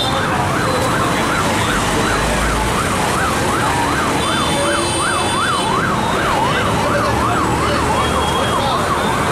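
Emergency vehicle siren warbling fast, its pitch sweeping up and down about three times a second, over steady street noise.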